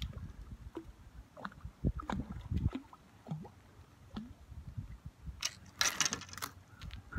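Water sloshing and splashing as a hooked crevalle jack thrashes at the surface, with a louder burst of splashing about six seconds in.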